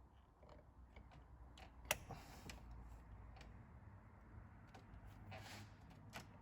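Faint metal clicks and light knocks of a pry bar levering and wiggling a Siemens diesel injector stuck in a 2.0 TDI cylinder head, with one sharper click about two seconds in.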